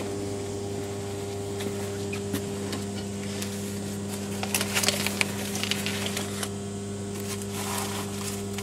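Torn, crushed book pages being handled by a gloved hand: paper rustling and crinkling in quick crackles from about halfway through and again near the end, over a steady low electrical hum.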